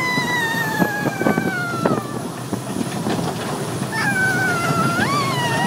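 A young girl squealing on an amusement park ride. One long high squeal slides slowly down in pitch over the first two seconds, and a second high squeal comes in about four seconds in and rises near the end, over a noisy background with scattered clicks.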